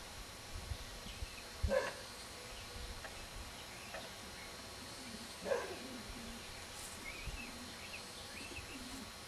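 An animal's short cry that falls in pitch, heard twice about four seconds apart. Faint bird chirps come near the end.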